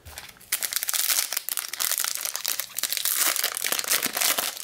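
Foil wrapper of a Bowman Draft Lite baseball card pack crinkling as it is handled and torn open. The crinkling starts about half a second in.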